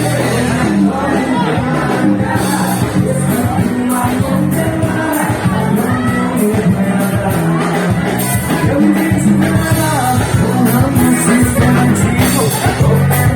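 Live band music with a singer, playing steadily throughout.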